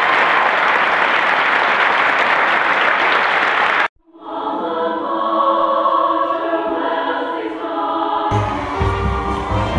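Steady applause for about four seconds, cut off abruptly, followed by a choir singing. Near the end a low rumble and outdoor crowd noise come in under the singing.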